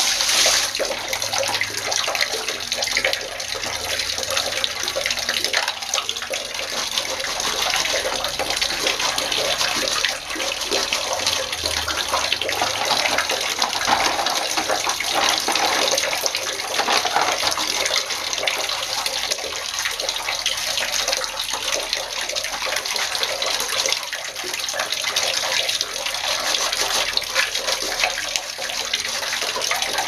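Water running and splashing steadily as the plastic parts of a table fan are rinsed and washed by hand.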